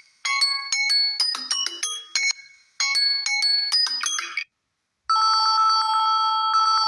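Samsung Galaxy A04 phone speaker playing ringtones. First comes a quick melody of bright notes, played twice with a short break between. After about a second of silence, a different steady, trilling electronic ring plays and then cuts off suddenly.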